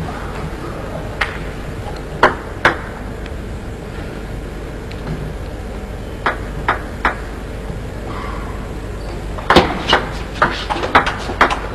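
Table tennis ball clicking off bats and table: a few scattered single clicks and short groups early on, then a quick run of about three clicks a second in the last couple of seconds as a rally gets going, over a steady background hum.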